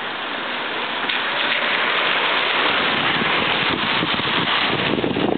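Steady splashing hiss of water running along a shallow grassy drainage ditch, growing a little louder about a second in.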